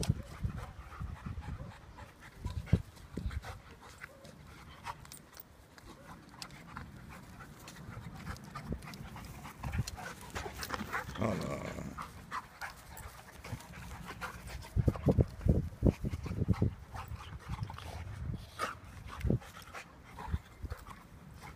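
Two dogs, a yellow Labrador retriever and a white Can de Palleiro, play-fighting: panting, with irregular bursts of scuffling and mouthing as they wrestle, busiest about two thirds of the way through.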